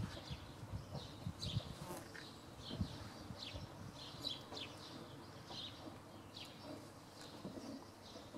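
Small birds chirping: many short, high chirps that fall in pitch, several a second and irregular, over a faint low rumble.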